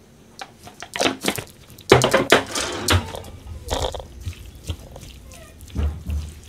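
Hands working raw chicken skin through potato starch on a metal tray: irregular wet slaps, rustles and light knocks against the tray, loudest about two seconds in.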